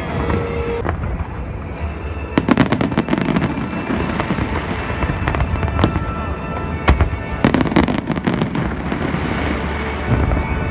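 Aerial fireworks going off in rapid clusters of sharp bangs, with music playing underneath.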